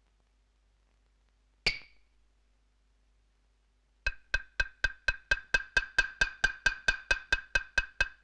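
A wood block struck as a soundtrack effect: a single sharp knock, then a pause, then a fast, even run of knocks, about four or five a second, each ringing at the same pitch.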